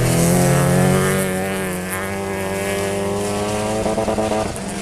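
Stock-car racing engines running hard at high revs, more than one at once, their pitch wavering slightly as the throttle changes.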